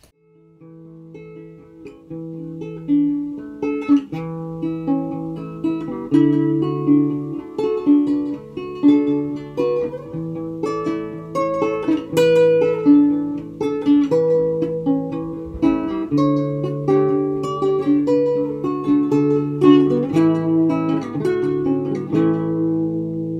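Instrumental outro music: a guitar picking a steady run of notes, building up over the first few seconds.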